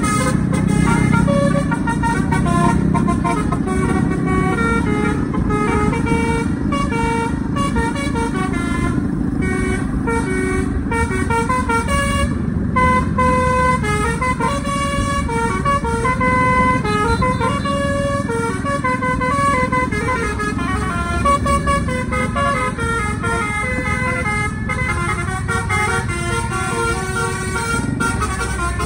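Bus telolet air horns playing a continuous stepping melody of short multi-tone notes, sequenced by a Takur horn module. Steady engine and road noise runs underneath.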